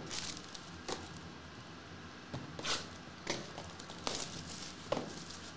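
A small cardboard trading-card box being handled and torn open by hand: scattered soft taps, scrapes and rustles of cardboard, about one a second.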